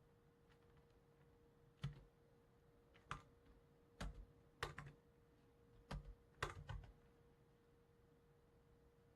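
A few scattered clicks from a computer keyboard and mouse, about six separate ones with pauses between, some with a quick second click, in the middle of the stretch. A faint steady hum lies beneath.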